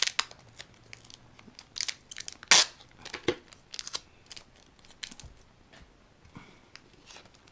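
A small plastic baggie holding bubble-wrapped bottles crinkling and rustling as it is handled and pulled open, with irregular sharp crackles, the loudest about two and a half seconds in.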